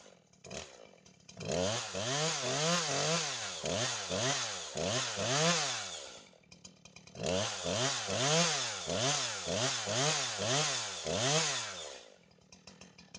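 Poulan Pro PR5020 chainsaw's two-stroke engine revved up and down about twice a second, with the chain brake off and the chain running free. It goes in two runs of a few seconds each, easing back to a low idle between them and near the end. This is the break-in rev that stretches a new, factory-tight chain.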